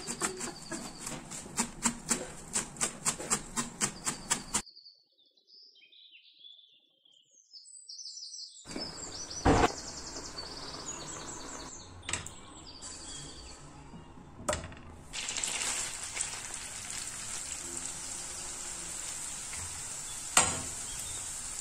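A knife chopping green onions on a plastic cutting board, a rapid, even run of chops. After a short near-silent pause with faint high chirps, potatoes bubble at a boil with a few knocks. Then chopped green onions sizzle steadily in butter in an aluminium pan, with a clank of the metal spoon against the pan near the end.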